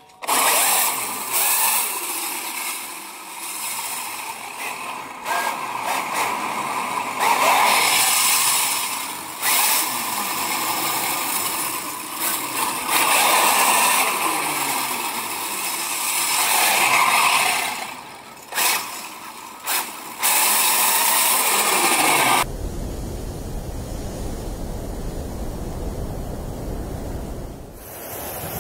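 Traxxas X-Maxx RC monster truck running on circular saw-blade wheels across ice: the steel blade teeth scrape and hiss on the ice while the electric motor whines up and down with the throttle. About 22 seconds in, this stops suddenly and gives way to a steady low rumble of wind on the microphone.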